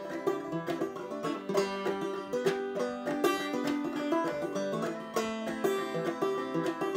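Banjo played clawhammer style: a steady, continuous run of plucked notes and strummed strikes.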